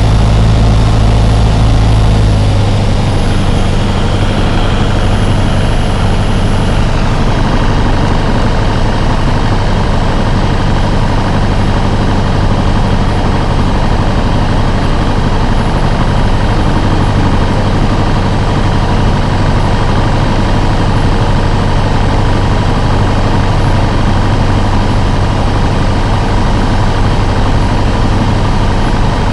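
Light aircraft's engine and propeller droning steadily inside the cockpit on the approach to land, the deep part of the note easing off slightly about two and a half seconds in.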